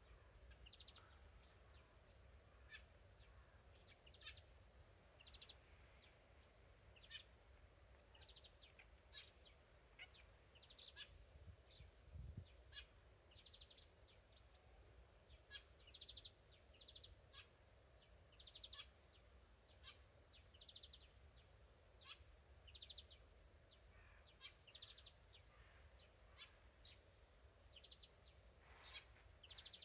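Small songbirds calling faintly: short high chirps and quick trills, one after another every second or so, over a low steady rumble.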